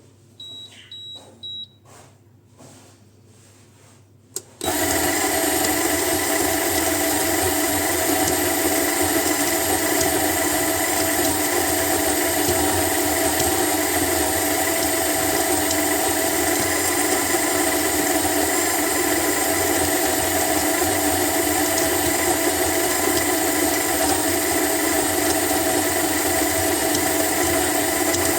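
Hibrew G3 electric coffee grinder: a few clicks and three short beeps from its controls, then about four and a half seconds in the motor starts and runs steadily, grinding coffee beans for a full timed grind.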